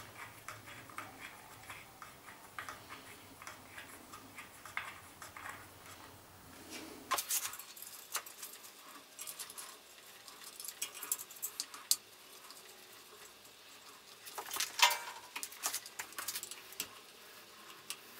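Irregular small clicks and taps from hands working wires and ring terminals in an electric motor's metal terminal box. The clicks come in busier clusters about seven seconds in and again around fifteen seconds.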